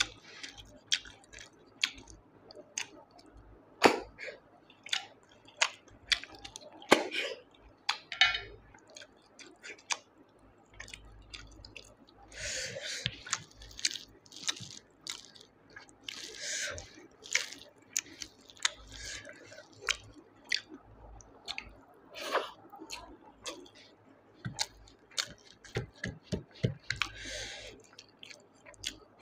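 Close-up eating sounds of someone eating snail curry with rice by hand: chewing and mouth smacks, with many small sharp clicks. A few short hissing sounds come around the middle and again near the end.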